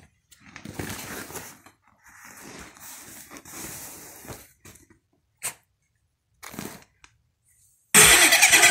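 Foil-faced sound-deadening sheet crinkling and rustling as it is handled, then a few short knocks. About eight seconds in, loud electronic music starts from a portable speaker.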